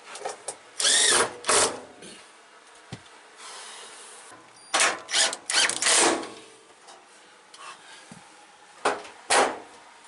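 Cordless drill-driver running in short bursts on screws in the door and front panel of a washer-dryer, its motor winding up and down with each pull of the trigger: two near the start, a cluster of about four a little past halfway, and two more near the end.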